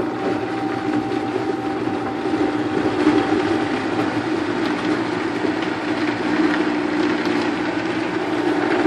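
Vitamix blender motor running steadily at a constant pitch, blending chunks of whole fruit with a little water into a smoothie.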